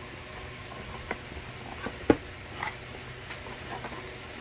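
Hands handling a cardboard box insert while taking out a white mesh Wi‑Fi unit: scattered light scrapes and taps, with one sharper knock about two seconds in, over a steady low hum.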